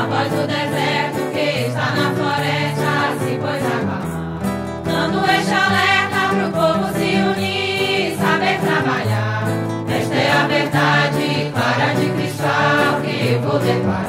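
A choir sings a Santo Daime hymn in Portuguese, with steady sung phrases and a sustained low accompaniment underneath.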